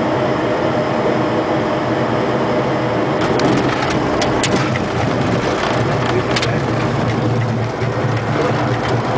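Cockpit noise of a Bombardier Challenger 300 business jet on its landing roll: a loud, steady rumble of the wheels on the runway and the twin turbofans, with a cluster of knocks and rattles from about three to six and a half seconds in.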